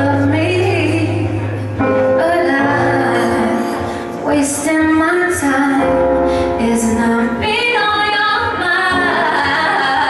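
A woman singing a pop ballad live into a microphone, holding long notes, backed by a band with bass and drums.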